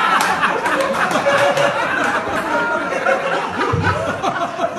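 A group of men laughing hard together, several voices overlapping in loud, continuous laughter.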